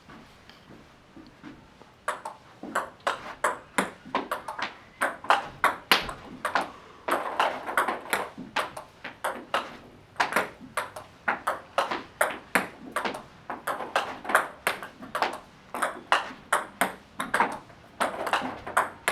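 Celluloid-style table tennis ball clicking sharply off bat and table in a quick, even rally of forehand loops against backspin, about two to three clicks a second. The clicking starts about two seconds in.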